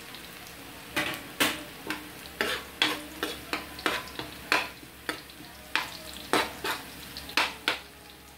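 Onion and garlic sizzling in hot oil in a metal wok, with a metal spatula scraping and clinking against the pan in quick, uneven strokes as they are stirred to golden brown. The strokes start about a second in and stop shortly before the end.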